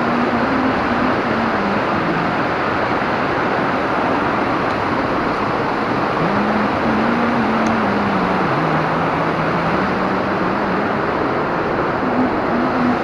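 River rapids: white water rushing over rocks, a steady, unbroken rush. A faint low wavering tone sits under it in places.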